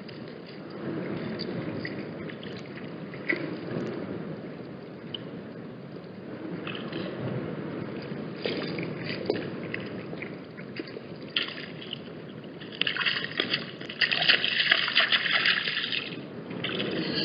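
Wind rumbling on the microphone, with scattered brief crackles and a louder few seconds of higher-pitched rushing noise near the end.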